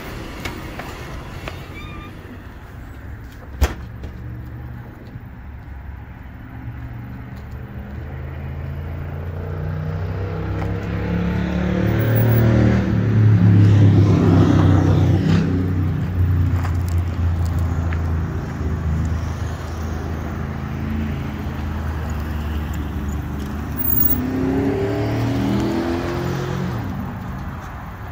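Road traffic: car engines and tyres passing on the road, the loudest vehicle swelling and fading about halfway through and another passing near the end. A single sharp click comes a few seconds in.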